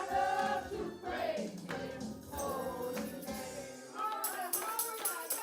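Gospel singing by several voices with a tambourine. About four seconds in, the low accompaniment drops out and the tambourine keeps a steady, rapid beat under the voices.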